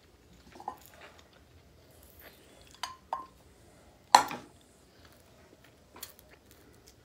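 Eating sounds of someone gnawing a chicken bone held in the fingers: a few soft clicks and knocks, and one sharp, loud sound about four seconds in.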